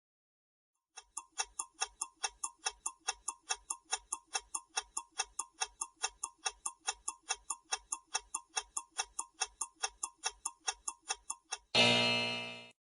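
Quiz countdown timer sound effect: clock-like ticking, about four ticks a second for ten seconds, then a loud time-up tone near the end that rings for about a second and fades out.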